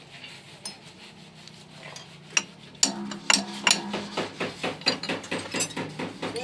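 Hammer striking metal: a couple of single knocks, then from about three seconds in a quick run of repeated sharp metal-on-metal blows, several a second.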